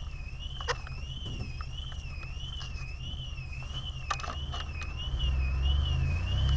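A high electronic alarm tone warbling up and down about twice a second, over the low steady drone of a fire engine's motor, which grows louder about five seconds in. A few short metallic clanks come from equipment being handled.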